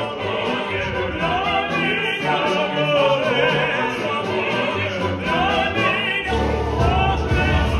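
Operatic ensemble singing, a soprano with male voices, with orchestral accompaniment; a fuller, deeper accompaniment comes in about six seconds in.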